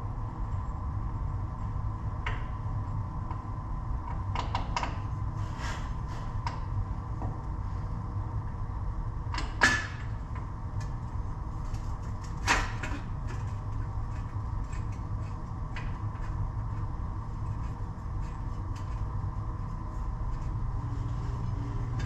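Steady low hum of shop background with scattered light clicks and knocks from tools and a hub bearing bolt being handled. Two sharper knocks stand out, about ten and twelve and a half seconds in.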